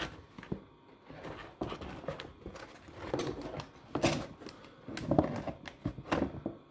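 Stiff plastic panels of a flat-pack folding shoe rack being handled: irregular clicks, taps and rustling as the pieces are turned over and flexed.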